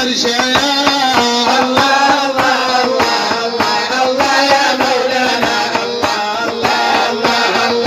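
Background music from an Arabic devotional song: a melodic line over a steady hand-drum beat.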